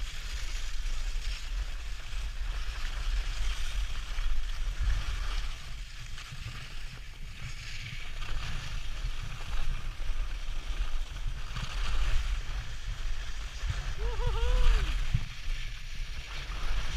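Wind buffeting a moving action camera's microphone on a downhill ski run, with skis scraping and hissing over groomed snow, the hiss swelling and fading. About fourteen seconds in, a short high voice rises and falls once.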